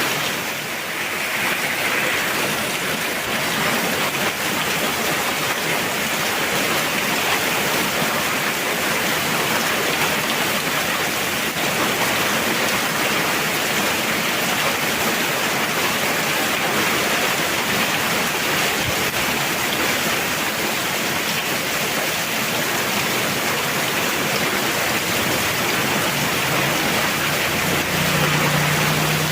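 Heavy rain falling steadily, a continuous even hiss of downpour.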